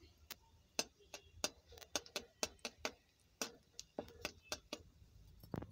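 Panch phoron spice seeds popping and spitting in hot oil in a kadai during tempering: faint, sharp pops at an irregular pace of several a second.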